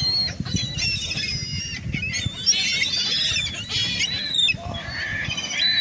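Several seagulls calling at once, a rapid run of short, high-pitched overlapping calls, one of them especially vocal. Low wind rumble on the microphone underneath.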